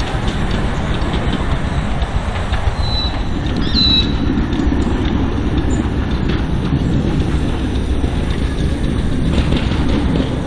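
A 1937 G&S 10¼-inch gauge 4-4-2 miniature steam locomotive running with its train, a steady rumble of wheels on the rails with faint clicks. A bird chirps briefly about four seconds in.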